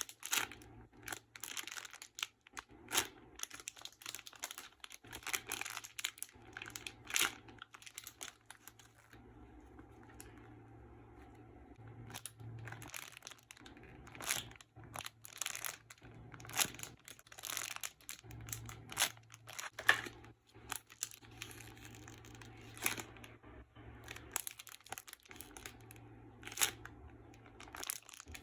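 Plastic crinkling and rustling as squishy toys in their wrappers are handled, in irregular crackles with a quieter spell about ten seconds in. A low steady hum runs underneath.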